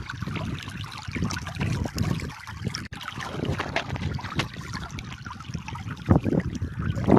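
Flowing, splashing water with wind rumbling on the microphone.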